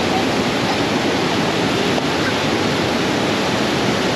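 Mountain stream cascading over rocks: a loud, steady rush of whitewater.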